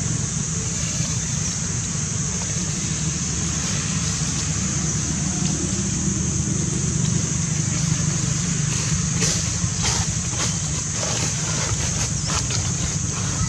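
Steady outdoor background noise: a constant low rumble under a constant high hiss, with a few faint clicks or rustles about nine to twelve seconds in.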